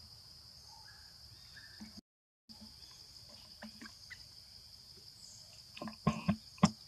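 Steady high-pitched chirring of crickets, with three or four sharp knocks close together near the end.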